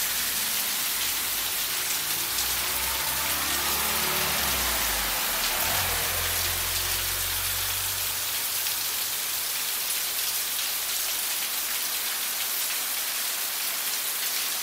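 Heavy rain pouring down onto a paved road and puddles, a dense steady hiss. A car drives past on the wet road in the first half, its low engine hum dying away about eight seconds in.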